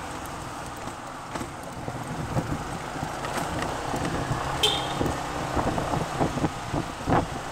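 Big scooter riding along a street: the engine runs steadily under wind and road noise, with irregular knocks and bumps. A brief high squeak comes about halfway through.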